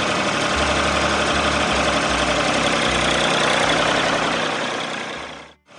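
An engine running steadily with a noisy, rumbling sound, fading out and cutting off near the end.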